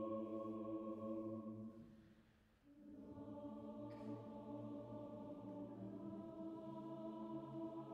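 Mixed choir with orchestra holding a soft, sustained chord that fades away about two seconds in. After a brief hush, a new quiet held chord comes in and stays steady.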